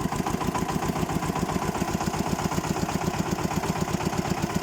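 Xingtai 244 tractor's diesel engine running steadily with a rapid, even pulse. Its knock is one the driver cannot place: it comes only at certain revs, and he likens it to a crankshaft knock.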